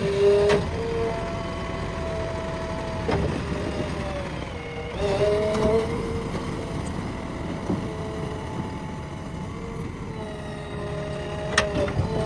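JCB 3DX backhoe loader's diesel engine running, with a whine that shifts in pitch now and then. A few sharp knocks come through, about half a second in, around three seconds in and near the end.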